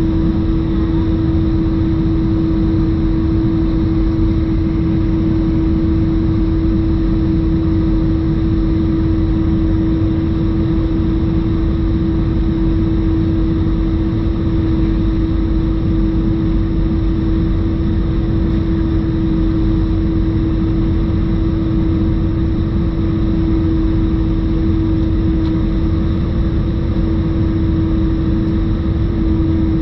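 Cabin noise of an Airbus A320-214 in its descent: the steady rumble of the CFM56 engines and airflow, with a loud, unbroken howl at one pitch from the left-hand engine.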